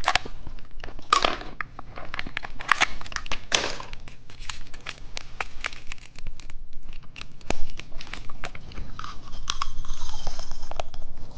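Plastic candy packaging crinkling and being torn open, with many sharp clicks and crackles and a denser rustling stretch near the end.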